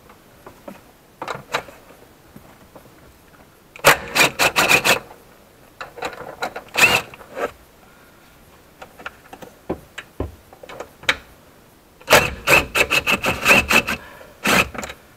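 Cordless DeWalt driver with a socket running 10 mm bolts out of the trunk floor, in two short runs of rapid clattering with a high whine: one about four seconds in, and a longer one about twelve seconds in. There are a few brief blips of the tool in between.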